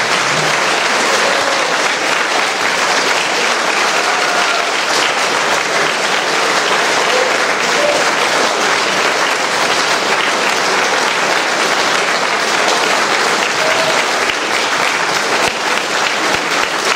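Large audience clapping in sustained, steady applause.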